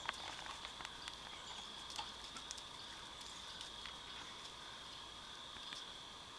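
A steady, high-pitched chorus of evening insects, with a few faint clicks scattered through the first couple of seconds.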